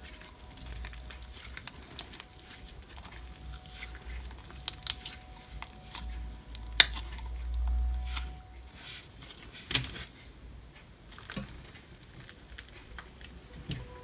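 Soft yellow butter slime, slime mixed with clay, being squeezed, stretched and pressed by hand: soft squishing with many small sticky pops and clicks, the sharpest pop about seven seconds in, along with a low dull rumble from pressing around then.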